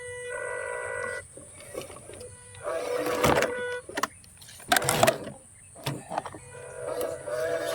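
Small electric motor and gearbox of a toy RC dump truck whining, starting and stopping in several short bursts, with rattling knocks from the plastic body.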